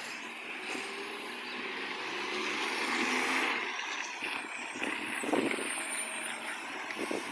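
Recycling garbage truck running with a roaring exhaust from an exhaust leak, swelling louder about three seconds in. A few short knocks follow later.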